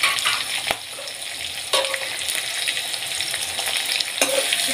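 Sliced onions sizzling in hot oil and ghee in a metal kadai as they begin to sauté, a steady hiss with a few sharp clicks.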